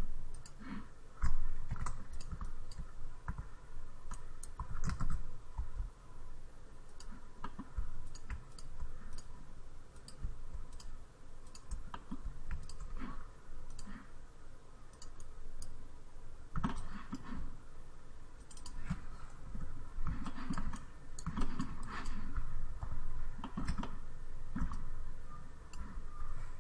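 Irregular clicking of a computer mouse and keyboard keys, several clicks a second at uneven spacing.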